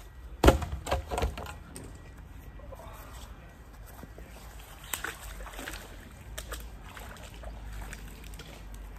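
A heavy thud about half a second in, followed by two smaller knocks, as a waterlogged piece of corrugated metal roofing is put down. Quieter handling clicks follow, one about five seconds in, over a low rumble.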